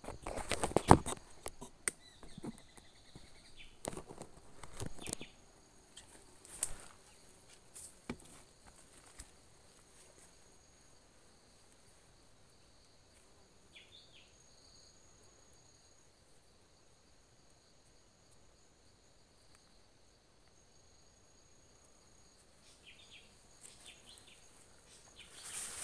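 Footsteps and rustling in dry bamboo leaf litter for the first few seconds, then a quieter stretch with a steady high insect trill and a brief high chirp about halfway through. Rustling picks up again near the end.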